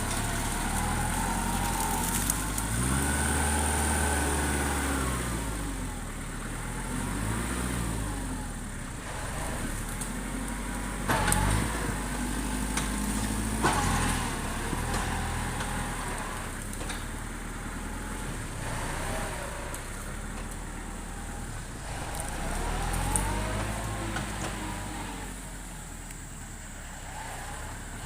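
Tractor engine running and changing speed, its pitch rising and falling several times, with a couple of sharp knocks partway through.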